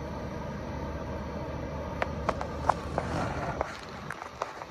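Low, steady rumble of a distant cane-train diesel locomotive approaching. About halfway through, a handful of sharp clicks and taps sound over it.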